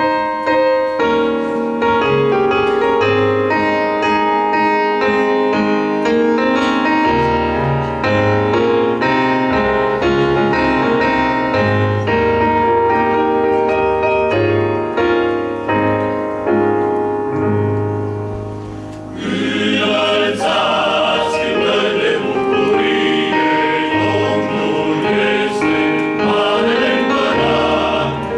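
Piano introduction of a hymn, single notes and chords played alone for about nineteen seconds; then a men's choir comes in singing in full harmony over the piano.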